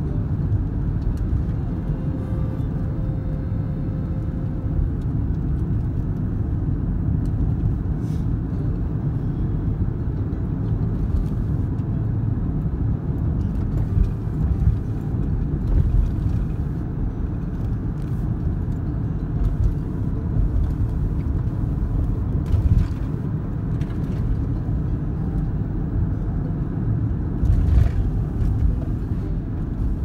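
Steady low rumble of a car being driven, heard from inside the cabin: tyres on the road and the engine, with a few brief knocks from bumps in the road.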